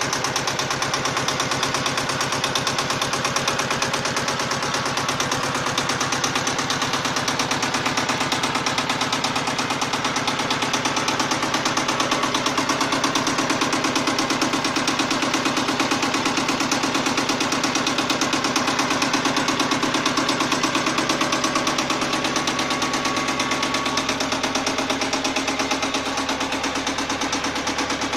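Shibaura SU 1341 compact tractor's diesel engine running at a steady speed, with a rapid, even beat of firing pulses.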